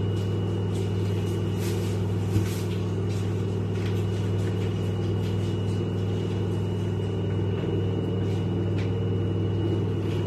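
A steady low hum from a running motor or appliance, with faint soft strokes of a silicone pastry brush spreading butter on dough and one light tap about two and a half seconds in.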